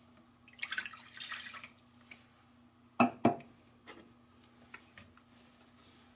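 Water poured from a glass measuring cup into a pot, splashing for about a second. About three seconds in come two sharp knocks close together, then a few faint clicks.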